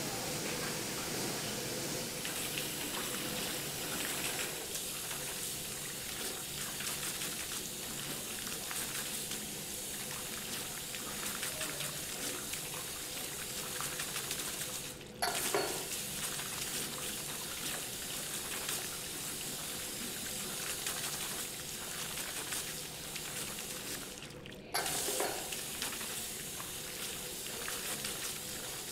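Tap water running steadily into a ceramic sink while hands are washed under it. The sound briefly cuts out and resumes twice, about halfway through and again near the end.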